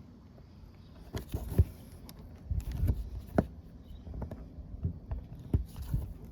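Handling noises: irregular clicks, taps and knocks, a few of them sharp, over a low rumble, like parts and tools being handled.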